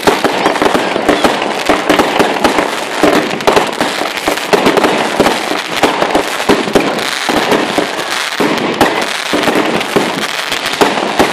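Fireworks going off in quick succession: a dense, continuous run of bangs and cracks, many overlapping, with no pause.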